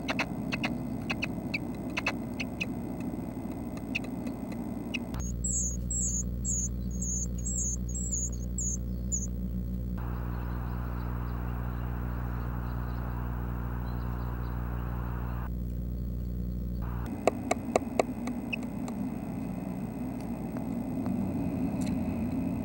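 Red-breasted nuthatch nestlings shuffling and scratching inside the nest cavity, a run of small clicks and scrapes. For about twelve seconds in the middle this gives way to a steady electrical hum, with a small bird's high chirps repeated about twice a second for the first few seconds, before the scratching returns.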